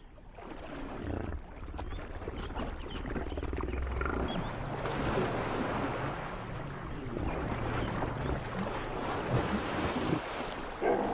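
Hippopotamuses fighting in the water: heavy splashing and churning with deep grunting bellows. The sound builds up over the first second or two and stays loud.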